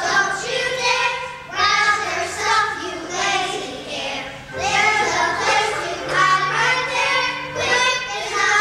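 A group of young children singing a song together in phrases with short breaks, over instrumental accompaniment holding steady low notes.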